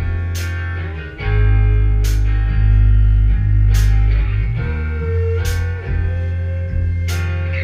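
A rock band playing live in a small room: electric guitar, bass guitar and drum kit, with heavy bass and cymbal crashes every couple of seconds. The band comes in louder about a second in.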